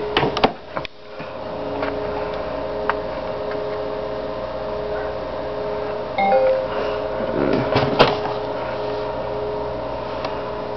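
Steady electrical hum of a few held tones, with knocks and clicks from handling the camera near the start and a rustle ending in a click about eight seconds in.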